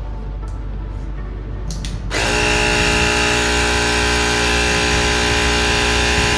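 Small electric tyre inflator switching on about two seconds in and running with a steady motor buzz as it pumps air into the bicycle inner tube.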